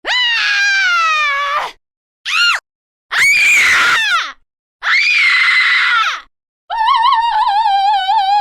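A woman screaming in five separate takes, each followed by dead silence: a long scream falling in pitch, a brief shriek, two more long screams, and near the end a scream that wobbles up and down in pitch.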